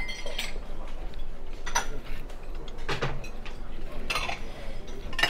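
Dishes and cutlery clinking at a self-service buffet: about five sharp clinks of crockery and serving utensils, roughly a second apart, over a steady background hubbub.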